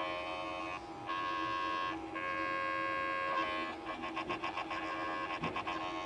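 Failing 1 TB Seagate portable USB hard drive making a buzzing hum of several steady tones at once, in stretches of a second or so that break off and start again. From about four seconds in the tones stutter rapidly, several pulses a second. This is the noise of a dying drive.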